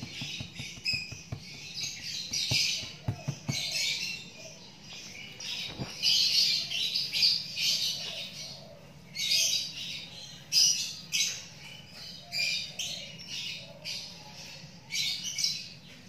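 Young kittens mewing, many short high-pitched cries in quick succession, over a faint steady low hum.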